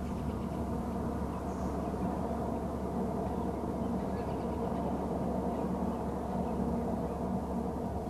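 Steady low rumble with a few even hum bands, like distant machinery. Faint gull calls come through about four seconds in.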